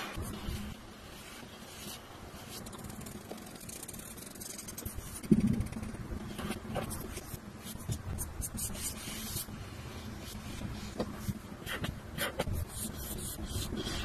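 Fine-tip felt pen scratching across paper in short, irregular strokes as lines and hatching are drawn. One louder soft thump about five seconds in.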